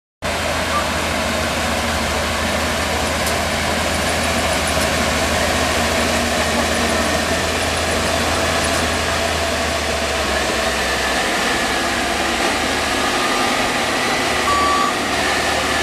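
Yanmar AW70V combine harvester running steadily, its diesel engine and machinery making a constant, even mechanical din that starts abruptly.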